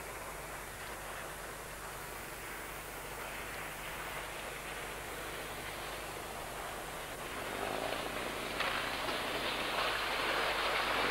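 Speedboat running fast on the water: engine and spray heard as a steady rushing noise that grows louder about eight seconds in as the boat comes close.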